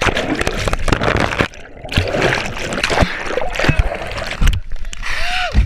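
Water churning, splashing and bubbling around a camera held underwater, with sharp knocks and sloshes throughout.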